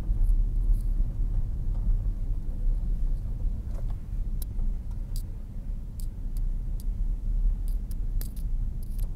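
Steady low rumble of a car driving, heard from inside the cabin, with a few faint scattered ticks.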